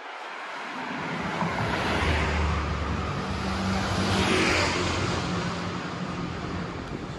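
Motor vehicles passing close on a street: a car goes by about two seconds in, then a motor scooter about four seconds in, each swelling and fading.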